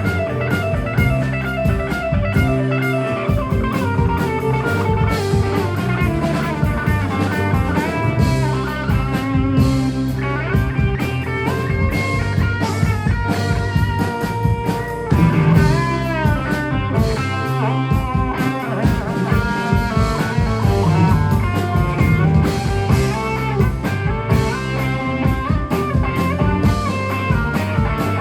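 A rock band playing live without vocals: a guitar plays a lead line with bent notes over bass and drum kit.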